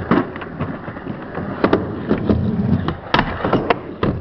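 Skateboards rolling and clacking: sharp clacks of boards hitting the ground and wooden ramps, a few spread out and then three in quick succession near the end, over a rough rumble of wheels on concrete.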